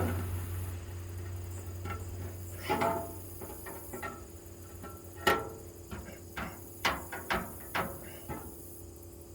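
Scattered sharp metal taps and knocks on the thin sheet metal of a toolbox drawer as it is bent and straightened. They come a few seconds apart at first, then several in quicker succession near the end.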